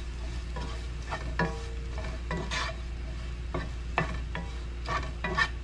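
Wooden spatula scraping and stirring crumbled plant-based ground beef (Beyond Beef) in a nonstick frying pan as it fries with a light sizzle, mixing in the salt and pepper. The strokes are irregular, about two a second, some with a brief ring from the pan, over a steady low hum.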